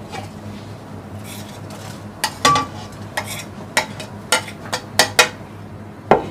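Plastic spatula scraping ground spice masala off a plate into an aluminium pot: a string of sharp taps and short scrapes starting about two seconds in, over a faint steady low hum.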